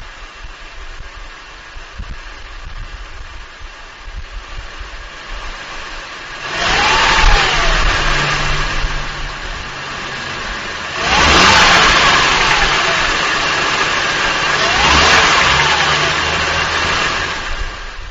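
2005 Acura TL's 3.2-litre V6 running with a knock after a cold start, heard from under the front wheel well. It idles for about six seconds, then is revved three times, each rev rising and falling back. The owner takes the knock for an engine fault; the dealer and Acura concluded it is normal valve-train noise.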